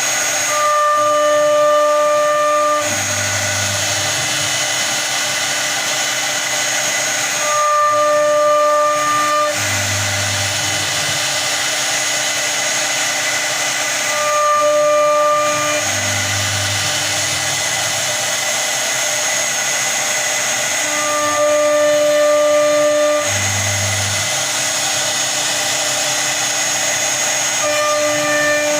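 CNC router cutting a door design: a steady spindle whine, with a louder two-second stretch of humming tones about every seven seconds as the machine runs each repeating pass, each followed by a brief low hum.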